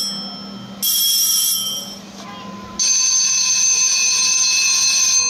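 Electric bell ringing in separate rings that start and stop abruptly: a short ring about a second in, then a longer ring of about two and a half seconds.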